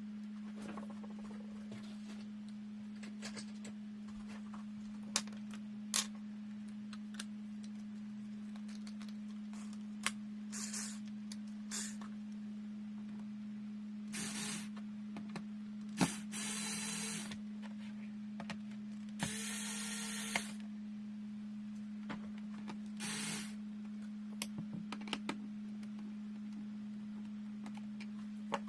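Scattered small clicks and a few short scraping rasps of hands working on a laptop's case and parts, over a steady low electrical hum.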